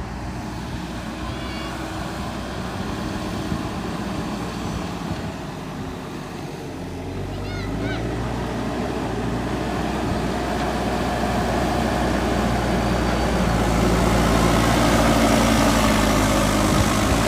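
JCB 3DX backhoe loader's diesel engine running, growing steadily louder from about seven seconds in.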